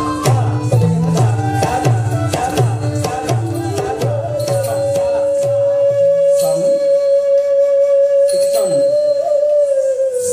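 Live Odissi music: a mardala drum plays a fast, even rhythmic pattern under a melody, then about four seconds in a bamboo flute holds one long steady note, lifting slightly near the end, over a few sparse drum strokes and bright ringing manjira strokes.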